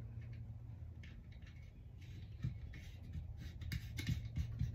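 Light clicks and taps of metal and plastic as a red dot sight's battery pack is threaded back on by hand, the clicks growing more frequent in the second half, over a steady low hum.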